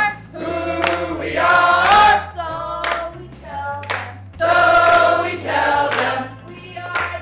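A group of voices singing a protest chant together, with hand claps on the beat about once a second.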